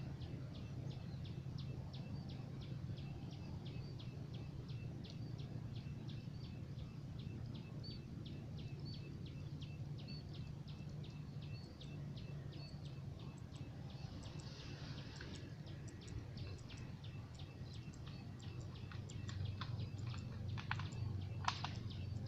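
Outdoor rice-field ambience. A rapid, regular high chirping, about four chirps a second, runs throughout, with a few louder bird calls near the end, over a low steady hum.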